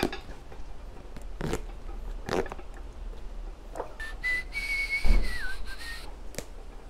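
Short scrapes and clicks of a hand tool working the leather of a boot, then a high, steady whistle-like squeak lasting about two seconds that dips in pitch once, with a dull thump partway through it.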